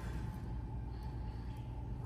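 Room tone in a hall during a pause in speech: a steady low hum.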